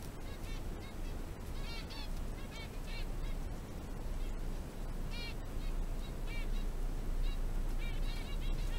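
Guinea pigs squeaking in short, high calls, singly and in quick little runs, while they feed on vegetables, with soft clicks of chewing between the calls.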